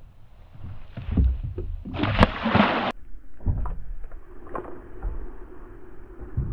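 Knocks and bumps on a plastic kayak as a caught fish is handled, with a loud burst of rushing noise lasting about a second, starting two seconds in and ending in a sharp click.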